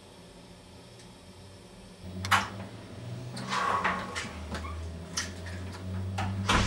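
Quiet room tone, then about two seconds in a sharp knock, followed by a run of irregular clicks, thumps and scrapes over a low hum, like things being handled.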